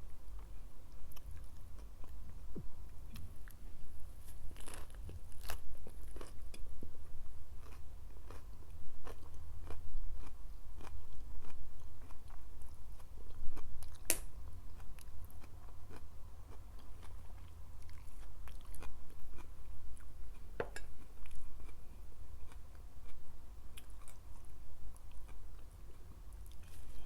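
Close-miked eating: chewing and biting with crisp crunches and wet mouth clicks, irregular throughout, the sharpest crunch about halfway through.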